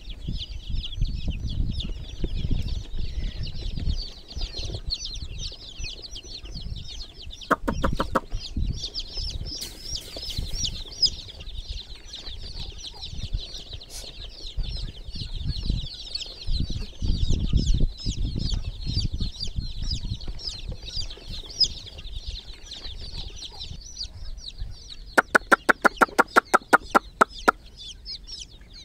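A group of baby chicks peeping continuously in short, high-pitched chirps over low thumps and rustling. Twice, about eight seconds in and again near the end, a rapid run of about a dozen sharp clicking pulses cuts through.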